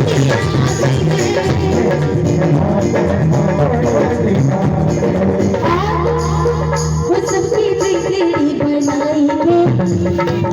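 Devotional bhajan music: a melody over a steady percussion beat.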